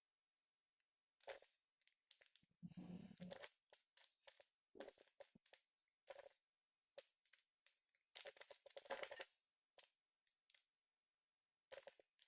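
Faint, intermittent plastic clicks and rasps of a Rubik's cube's layers being turned by hand, in short scattered bursts with a longer rustle about three seconds in and a busier cluster near the end.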